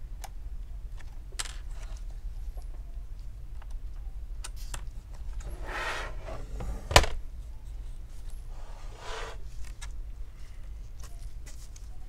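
Plastic screen bezel of an MSI laptop being pried off its double-sided adhesive by hand: small scattered clicks, two short peeling crackles, and one sharp snap about seven seconds in, the loudest sound.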